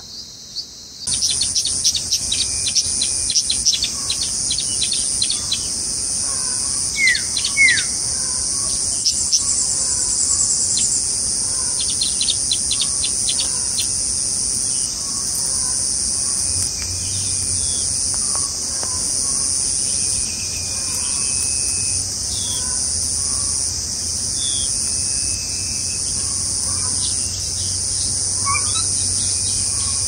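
A steady, high-pitched drone of insects, with scattered bird chirps and calls over it: quick runs of chirps in the first few seconds and again around twelve seconds in, and a couple of short rising notes around seven seconds in.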